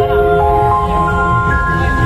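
Electronic keyboard playing a melody of long held notes over a steady beat, the instrumental intro to a devotional aarti song.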